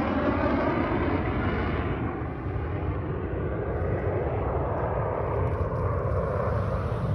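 Jet engine noise from military jets flying over: a steady, rushing rumble that dips slightly a couple of seconds in and then swells again.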